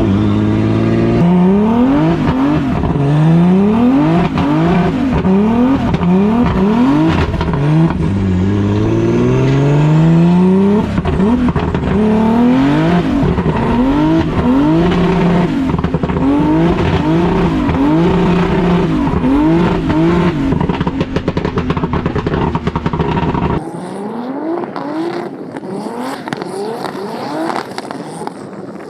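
Turbocharged BMW E46 M3 engine revving up and down over and over as the throttle is worked through drift donuts, with some tyre squeal. About three-quarters of the way through, the sound suddenly turns quieter and thinner.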